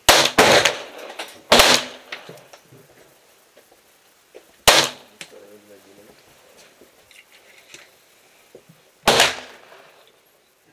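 Hammerli Xesse Sport .22 LR semi-automatic pistol firing five single shots, each with a short echoing tail. The first two come in quick succession at the start, and the rest follow at uneven gaps of one to four seconds.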